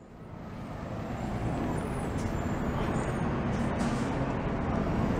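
Street traffic with a city bus and cars, a steady low rumble that fades in over the first second or so. A brief high hiss comes a little before four seconds in.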